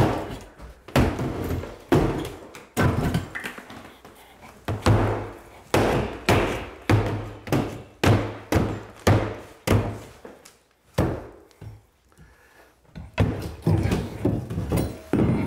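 Halligan bar hacking and punching through drywall: a long series of hard thuds, about one or two a second. There is a short pause a little after ten seconds, then a quicker run of blows as the hole is opened up to reach the stud behind.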